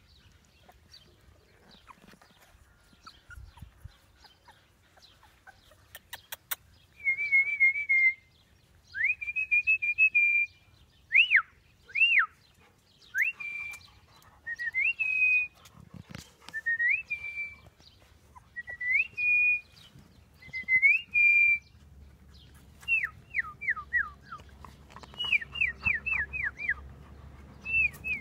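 Chocolate Labrador Retriever puppies, 19 days old, whimpering: a string of high, thin whines, some rising and then holding, some dropping sharply, coming every second or two from about a quarter of the way in. Near the end they come as quick runs of short falling squeaks.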